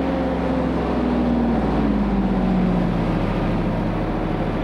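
Truck engine running steadily as it hauls a large log, its pitch rising gradually over the first couple of seconds.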